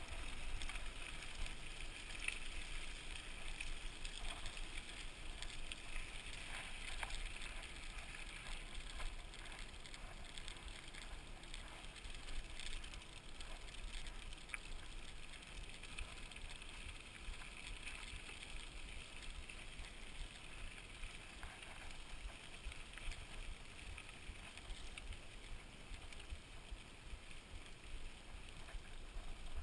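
Mountain bike rolling along a dirt trail: steady tyre noise with scattered small clicks and rattles, and gusty wind rumble on the camera microphone.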